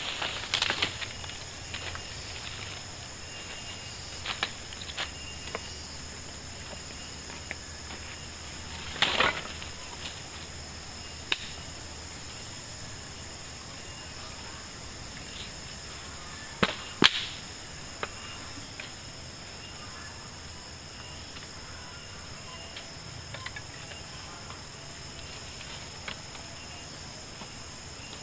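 Steady high-pitched drone of insects in tropical forest, with a few scattered sharp swishes and snaps, the longest a brief swish about nine seconds in and the loudest a snap about seventeen seconds in.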